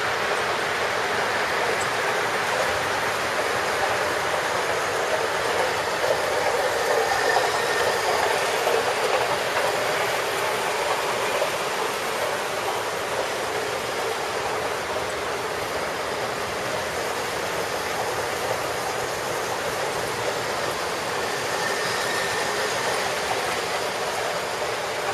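Standard-gauge tinplate model trains running on the layout's track: a steady whirring rumble of electric motors and metal wheels on metal rail. It grows a little louder around seven seconds in.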